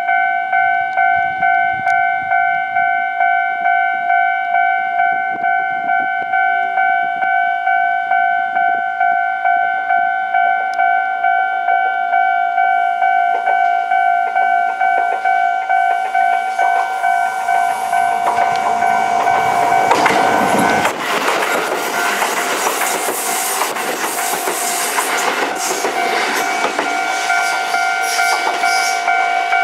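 Japanese level-crossing warning bell ringing steadily, an evenly repeated electronic ding about twice a second. Past the middle a Kintetsu limited express electric train comes through: its rushing and rattling noise builds, is loudest about two-thirds of the way in and carries on almost to the end, partly covering the bell.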